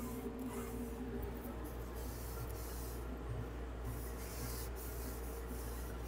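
Faint rubbing of a damp rag wiping out the drain pan of an HRV air exchanger, over a steady low hum.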